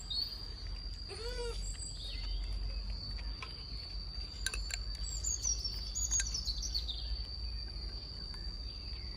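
Outdoor garden ambience: birds chirping with short falling calls, over a steady high-pitched insect drone. A brief pitched squeak sounds about a second in, and there is a low rumble of wind or handling underneath.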